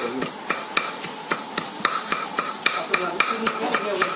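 A long knife chopping steadily on a thick round wooden chopping block, mincing raw goat meat, at about four even chops a second.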